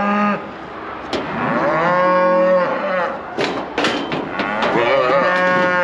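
Beef calves bawling in long, drawn-out calls, three in a row, with a few sharp knocks between the second and third.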